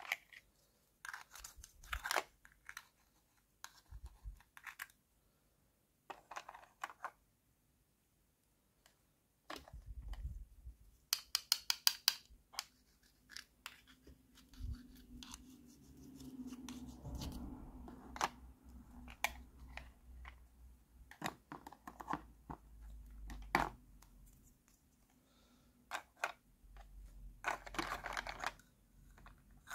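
Small plastic toy-kitchen pieces (toy food, a pot, utensils) clicking, tapping and scraping against each other as they are handled and set in place, with scattered clicks, a quick run of clicks about eleven seconds in, and a rustling scrape near the end.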